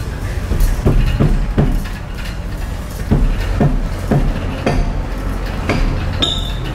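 Repeated hammer blows on a C6 Corvette's brake rotor through a towel held against it, about two strikes a second, knocking loose a rotor stuck tight on the hub after a spray of WD-40.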